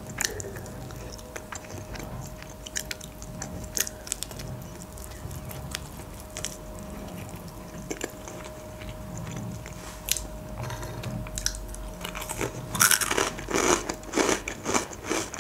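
Close-up chewing and biting of fried chicken, with soft wet mouth sounds and scattered sharp crunches from the crisp skin. The crunching grows busier and louder in the last few seconds, over a faint steady hum.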